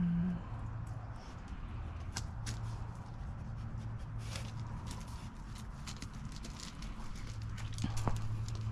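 Scattered soft footsteps and small clicks of a dog moving about and searching on wet ground, over a low steady hum.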